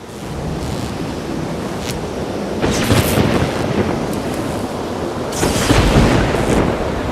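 Thunderstorm sound effect: a steady wash of rain and wind with rolls of thunder swelling about three seconds in and again around six seconds.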